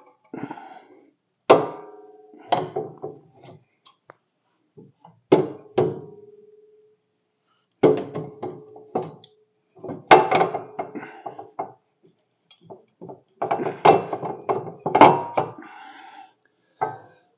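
Steel mounting parts of a snowblower attachment being handled and fitted under a compact tractor: a scattered series of metal clinks and knocks, several with a short ring.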